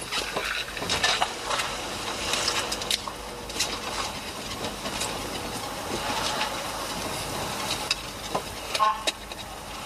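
Hiss and rustling on a police body camera's microphone, broken by scattered irregular knocks.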